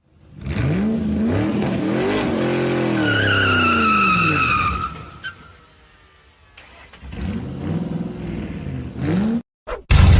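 A car engine revving up and down twice, with a high tyre squeal during the first rev.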